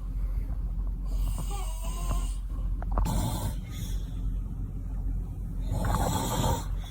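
A man snoring in his sleep: two loud snores, about three seconds in and again near the end, with a quieter breath carrying a brief whistling tone about a second and a half in.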